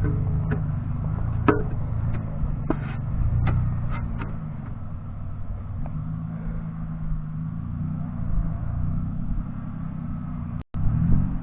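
A vehicle engine runs steadily while driving, with several sharp rattling knocks in the first few seconds. It cuts off abruptly near the end.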